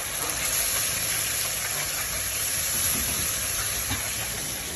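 Tamarind sauce simmering in a wok with a steady hiss. A wooden spatula stirs it toward the end.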